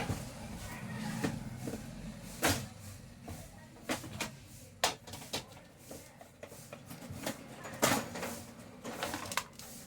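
Irregular clicks and light knocks of handling, about eight sharp ones at uneven intervals, the loudest near eight seconds in, as tools and small parts of an electric room heater are worked on.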